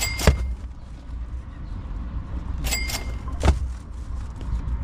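Two dead little tunny dropped one after the other into a styrofoam fish cooler, each landing with a sharp thud, the first just after the start and the second about three and a half seconds in. A short squeak comes just before each thud.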